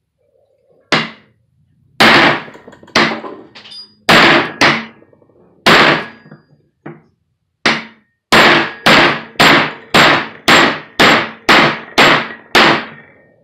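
Hammer blows, metal on metal with a short ring, knocking a U-joint bearing cap out of the CV head yoke of a Ford F-250 drive shaft. The strikes come irregularly at first, then settle into a steady run of about two a second for the last five seconds.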